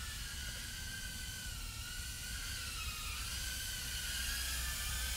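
HGLRC Petrel75 micro drone's motors and propellers whining in flight, a steady high whine whose pitch wavers down and back up with the throttle.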